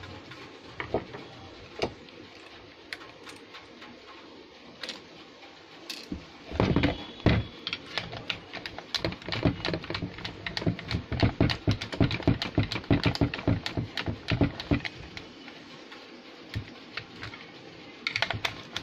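Clicking and knocking of a rotary hammer drill's plastic housing and parts being handled and fitted back together, with scattered clicks at first and a dense run of quick clicks through the middle.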